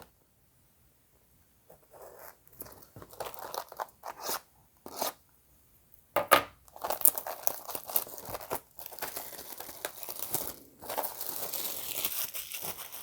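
Plastic shrink wrap being torn and crinkled off a trading card hobby box. A few scattered crackles, then about six seconds in a sharp tear and steady crinkling.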